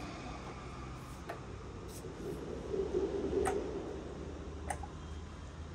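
Csepel RF 50/1600 radial arm drill running while its feed rate is being changed: a steady low machine hum that swells briefly around the middle, with four sharp clicks from the feed controls being shifted.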